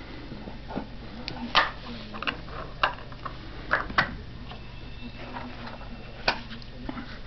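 A dog chewing and mouthing a plastic deodorant cap, making a scattering of sharp, irregular clicks and knocks.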